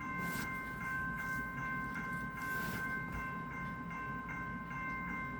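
RSI electronic bell ringing steadily, struck again about four times a second over a sustained multi-tone ring.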